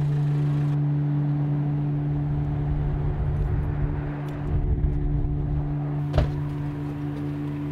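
A low steady hum with a deeper rumble swelling in the middle, and one sharp knock about six seconds in.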